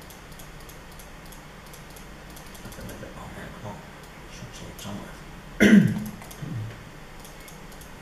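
Scattered light clicks on a laptop's keys and buttons as a PDF is paged through. About halfway through, a person makes one loud, brief throat sound, with a softer one just after.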